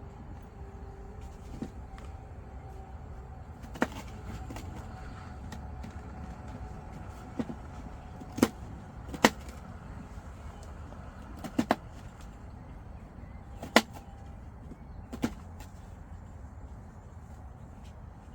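Sharp clicks and knocks at irregular intervals, about nine in all and some in quick pairs, over a steady low rumble.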